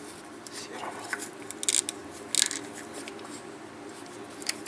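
Metal parts of a partly stripped car starter handled and turned by hand: a few short metallic clicks and scrapes, the two loudest about two seconds in, over a steady low hum.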